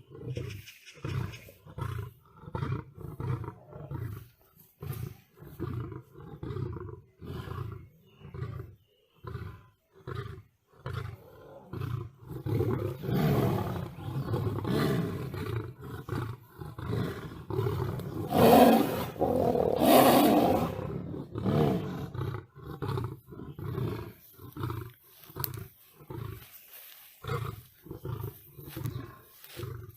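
Big cat roaring: a long run of short, deep grunting pulses, one or two a second, swelling in the middle into a louder, harsher, more continuous roaring and snarling before falling back into the pulses.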